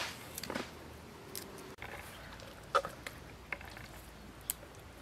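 Dry walnut shells crackling and snapping as the kernels are picked out by hand, in scattered small clicks, the loudest about three seconds in.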